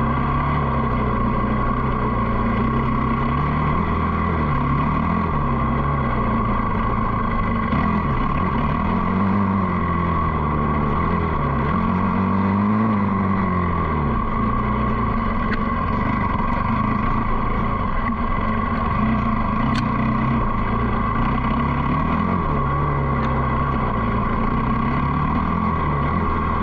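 Dirt bike engine running continuously, its pitch rising and falling again and again as the throttle is opened and closed.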